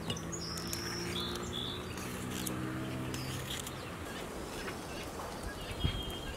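Small birds chirping. A low steady hum runs under them until a little past halfway, and there are light crisp clicks from a knife cutting a green bell pepper.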